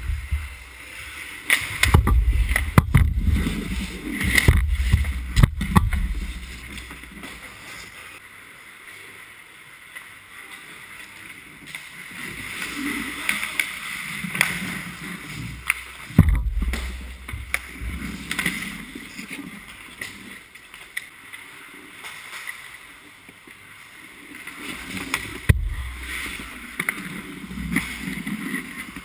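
Ice hockey play heard from inside the goal: skate blades scraping and carving the ice, with sharp knocks and low thumps from sticks, puck and the goalie's pads around the net. The knocks come in a cluster in the first few seconds, then singly past the halfway mark and near the end.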